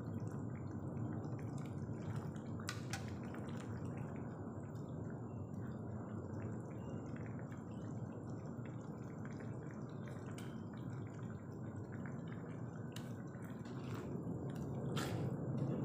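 A pan of young jackfruit and long beans in yellow spiced broth simmering, bubbling steadily, with a few faint clicks.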